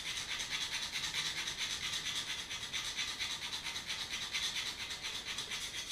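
Knife blade rubbed back and forth on a paste-coated honing bar in quick, even scraping strokes, several a second, stopping abruptly at the end. The blade's small damaged section of edge is being smoothed, with the chipping and burr worked off before resharpening.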